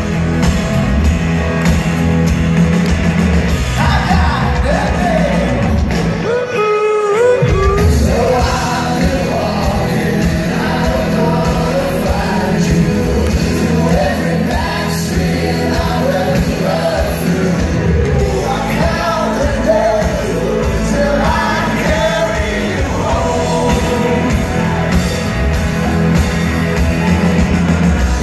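Live rock band playing, heard from the audience: a lead vocal sung over electric guitars, bass and drums. About six seconds in the low end drops away for a moment while the sung line carries on, then the full band comes back.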